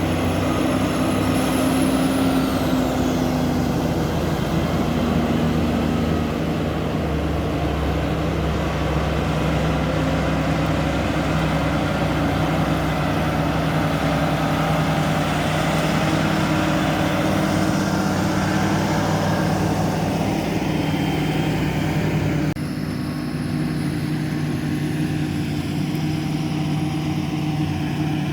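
Large farm tractor's diesel engine running steadily under ploughing load. The sound changes abruptly about three-quarters of the way through, slightly quieter and with a different engine pitch.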